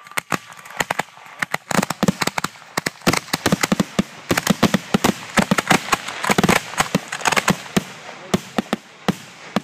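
Finale fireworks racks firing on the ground: a fast, irregular barrage of sharp bangs, several a second, sparse at first, densest through the middle and thinning toward the end.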